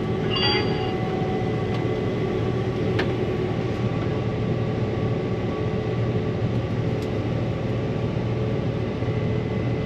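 Steady drone of a Case IH 8250 combine heard from inside the cab, running under full load while harvesting and unloading grain. A short high tone sounds about half a second in.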